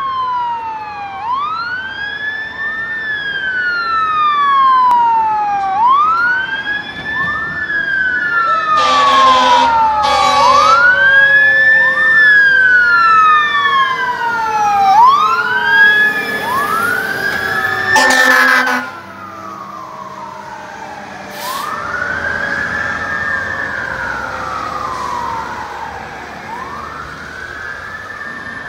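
Sirens of an E-One fire engine and ladder truck wailing as they respond, two sirens overlapping, each rising and falling every two to three seconds. Three short horn blasts come around the middle as the trucks pass close. After that the sirens carry on more faintly as the trucks move away.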